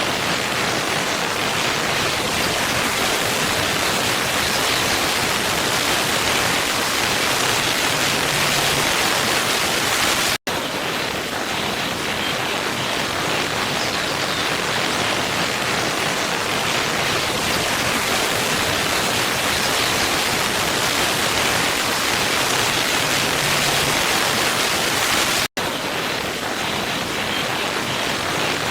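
Steady rushing of a waterfall, an even roar of falling water with no change in strength. Twice, about fifteen seconds apart, the sound cuts out for a split second.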